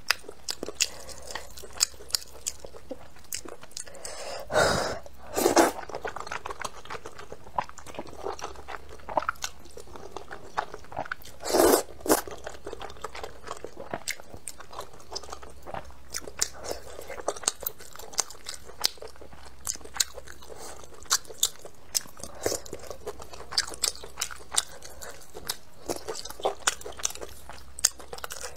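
A person chewing and biting a mouthful of thick noodles and meatballs close-up, with frequent small wet clicks and smacks. A few louder, longer mouth sounds come about five seconds in and again about twelve seconds in.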